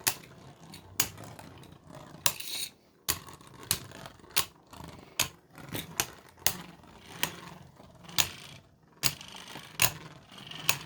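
Two spinning Beyblade tops, Toxic Rose and a 3D-printed Artemis, clacking against each other and the stadium walls in sharp, irregular clacks about once a second, over a faint steady whir. The battle is coming down to stamina.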